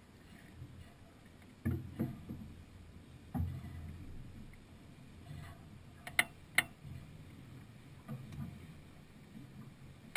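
A sailing yacht under way in light wind: low water and hull noise with a few dull knocks in the first few seconds, and two sharp clicks about six seconds in.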